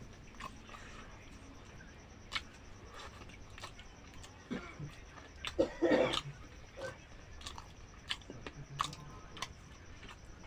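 A person chewing and eating gulgula, fried sweet dough balls, with scattered small mouth and bite clicks. A louder, denser stretch of chewing noise comes about six seconds in.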